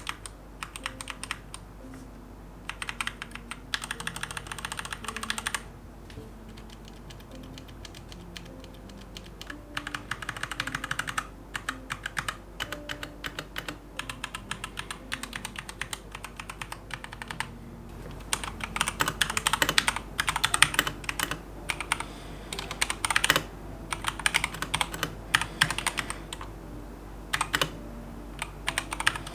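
Keychron K2 V2 mechanical keyboard with Gateron Brown tactile switches being typed on: runs of quick keystrokes broken by short pauses, with faster, louder flurries of typing in the second half.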